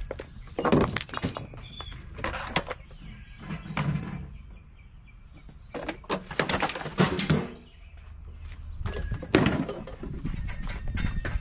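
Knocks, clatter and rolling of a homemade chain-reaction contraption as balls run down wooden ramps and parts tip over and strike one another, in several separate bursts.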